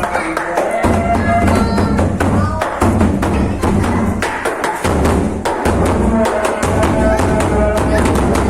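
Loud music driven by drums, with a pulsing bass beat, many sharp percussive hits and a few held melodic notes.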